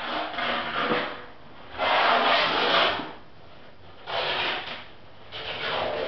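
Four rough scraping strokes, each about a second long, with short pauses between.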